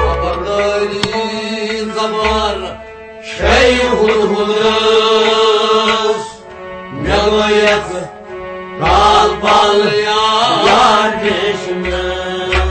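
Kashmiri Sufi devotional song: long, drawn-out sung notes in several phrases over a low drum beat.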